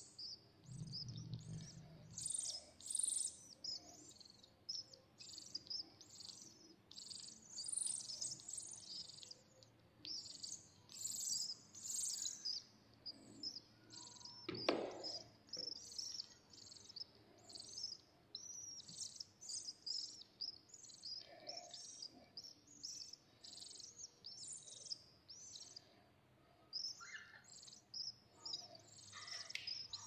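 Nestling birds giving high, thin begging cheeps in quick, repeated bursts as they are hand-fed from a syringe. A single knock sounds about halfway through.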